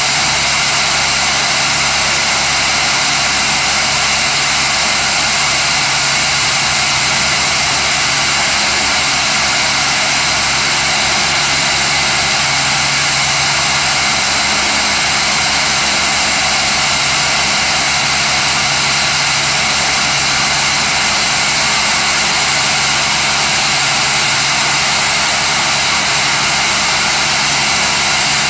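Homemade vibrating topsoil screener running: a loud, steady machine noise that does not change for the whole stretch.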